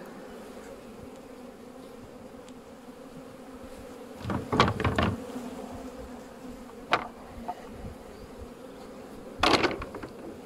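Honeybees humming steadily over an open hive. Sharp knocks and clatter from a metal hive tool and plastic frames come in a burst about four seconds in, once near seven seconds, and again near the end.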